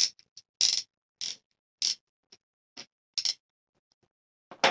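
Short clicks and scrapes of a CF20 paintball magazine's plastic shell, spring and follower being handled and fitted together, as the spring is pulled and the parts are seated: a string of separate clicks, roughly one every half second.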